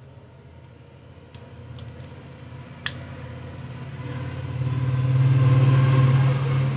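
A steady low engine hum that grows much louder from about four seconds in, peaks, then eases slightly near the end. A single sharp click comes about three seconds in.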